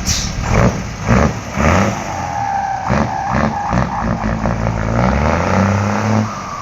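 Mercedes-Benz 1518 truck's turbodiesel engine revved in about six quick blips, then held at higher revs, with a turbo whistle over the engine note.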